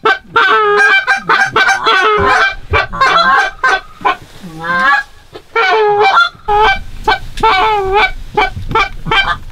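Hunters' goose calls blown in a fast run of Canada goose honks and clucks, working an incoming flock of geese toward the blind. The notes come several a second, with a short lull about four seconds in.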